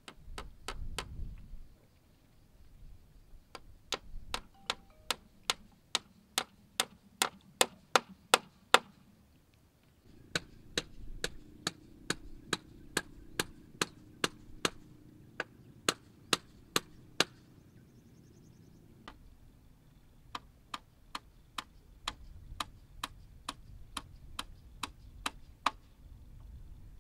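Hammer blows on the wooden poles of a stilt platform frame: sharp, regular strikes at about two a second, in three runs with short pauses between.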